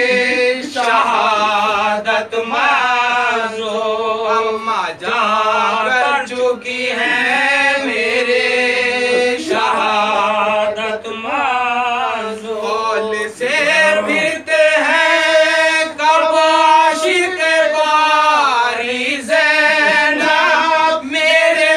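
Several men chanting an Urdu marsiya (Muharram elegy) together without instruments, in long, held, wavering sung phrases.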